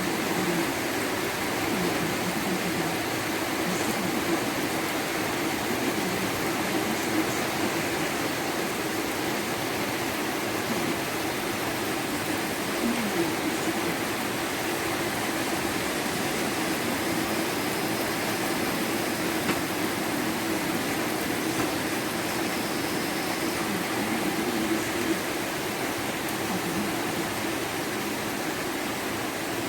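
Heavy rain falling, a steady even hiss of downpour.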